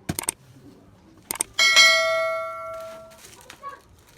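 A few light clicks, then a single bell-like ding that rings out and fades over about a second and a half.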